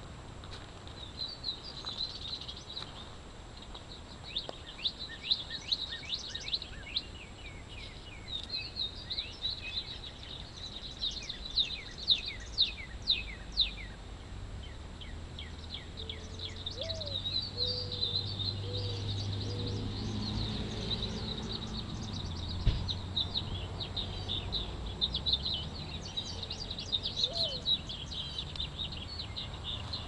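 Small songbirds chirping and twittering in quick runs of short, high notes, over a low background hum. A low rumble swells for several seconds in the middle.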